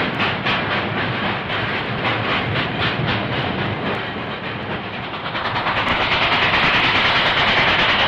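New York Central steam locomotive 2886 working hard up a grade, its exhaust beating fast and evenly at about five beats a second. The beats fade about halfway through into the steady rushing and rattle of the freight cars rolling past.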